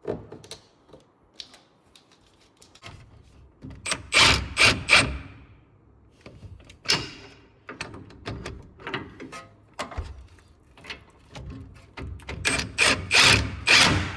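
Hand-tool work on a truck's front wheel hub: scattered clicks and knocks, with a run of three loud strikes about four seconds in and another of four near the end.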